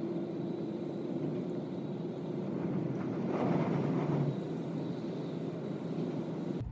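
Steady vehicle running noise, a rumbling hiss that swells louder for about a second midway.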